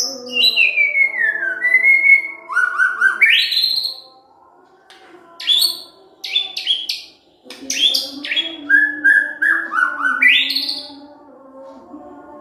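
White-rumped shama (murai batu) singing loud whistled phrases: a long falling glide near the start, then rising sweeps and quick chattering notes, in two bursts with a pause of about three seconds between. Steady low tones sound underneath.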